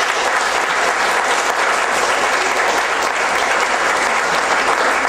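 Audience in a hall applauding steadily, a dense even clapping.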